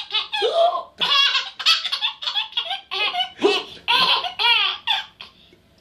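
A small child's giggling laughter: a rapid run of short, high-pitched laughs in several bursts, stopping near the end.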